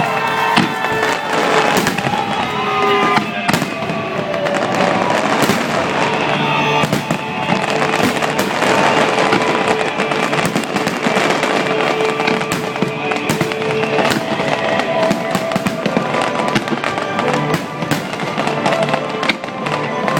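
Fireworks shells bursting in quick succession, many sharp bangs, with music playing at the same time.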